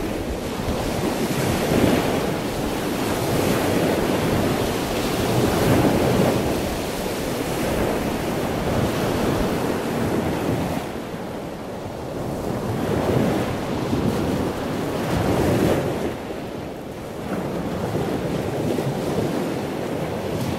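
Ocean surf breaking on a beach, with wind buffeting the microphone; the noise swells and eases every few seconds as waves come in.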